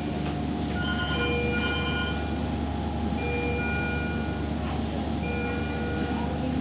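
Electronic alarm beeps from intensive-care equipment, such as a ventilator or patient monitor, with several tones of different pitch sounding in short repeating beeps. A steady low machine hum runs underneath.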